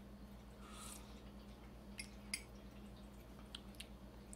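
A faint sip from a mug of chicory root brew about a second in, then a few soft mouth and lip clicks as it is tasted, over a low steady hum.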